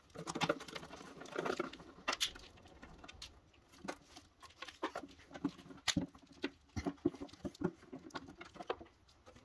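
Irregular light scrapes, taps and clicks of a rusty steel oil pan being pried and worked loose by hand from the bottom of a Mopar 361 engine.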